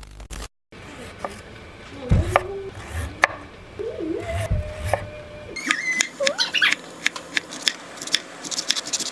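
Chef's knife slicing and chopping potatoes, carrots, onions and cabbage on a wooden cutting board: a run of sharp knocks of the blade on the board, coming quicker in the last few seconds. A few short whining, voice-like tones sound between the chops.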